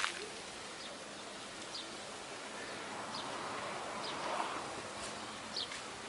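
Outdoor ambience: a steady background hiss with brief high chirps from small birds every second or so, and a swell of broader noise around the middle.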